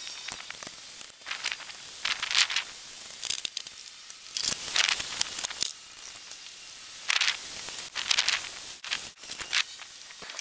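Metal chain of a hand chain hoist rattling in several short, irregular bursts as it is handled and hooked to a load, with a few sharp clicks.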